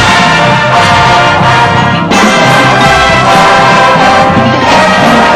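Marching band brass line (mellophones, baritones and other horns) playing loud sustained chords, with a short break and a new chord attack about two seconds in.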